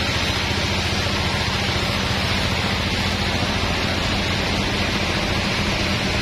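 Sawmill saw machine running steadily: a constant low motor hum under an even hiss, with no change in pitch or level.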